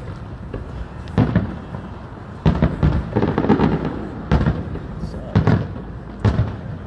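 Fireworks bursting: a string of sharp booms about once a second, with a rapid run of bangs and crackle about two and a half seconds in.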